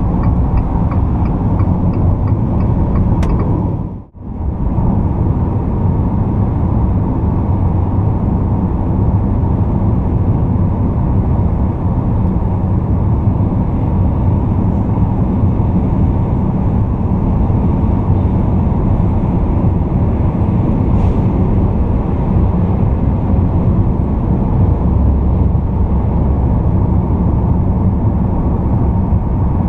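Cabin noise of a 2020 Fiat Toro Volcano 2.0 diesel pickup cruising at highway speed, around 100 km/h: a steady rumble of tyres, road and engine. A few faint ticks come in the first seconds, and the sound drops out briefly about four seconds in.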